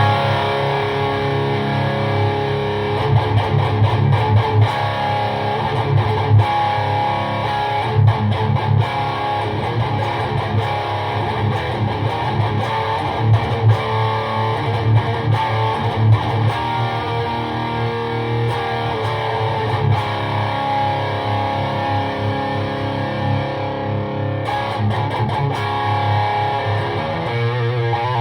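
Electric guitar (Jackson DKM2 with Seymour Duncan JB humbuckers) played without a break through a PRS MT-15 V2 tube amp head and an ENGL 1x12 cabinet with a Celestion Vintage 30 speaker, heard as room sound.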